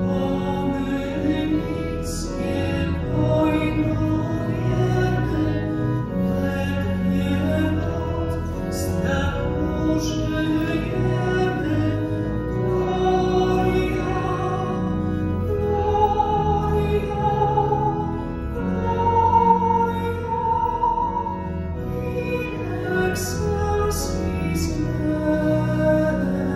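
A slow hymn sung with organ accompaniment: voices holding long, wavering notes over sustained organ chords, with sung words audible now and then.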